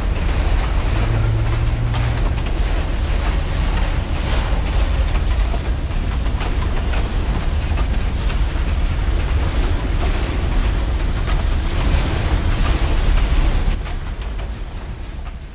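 Railway cars rolling past on the track: a steady rumble with the clatter of wheels over the rails. It fades out near the end.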